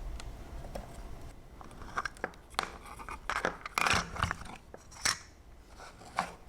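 Irregular sharp clicks and short scrapes of small hard objects being worked by hand, starting about a second in and loudest around the middle.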